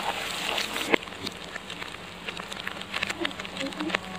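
Egg and green capsicum frying in oil in a wok. A sizzle, strongest in the first second, is broken by sharp clicks and scrapes of the spatula against the pan, with a steady low hum underneath.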